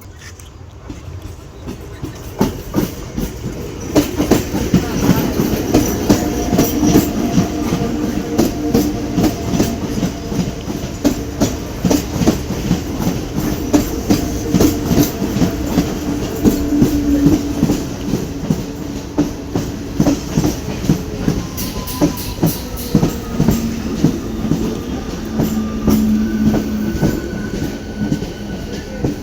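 An Indian Railways train passing close by: wheels clacking over the rail joints in a dense, rapid run. The sound builds up over the first few seconds, then stays loud, with faint steady tones above the clatter.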